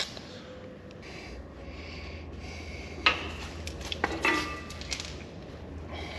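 Metal brake parts clinking and knocking against each other and the workbench, with two sharp ringing knocks about three and four seconds in, over a low steady hum.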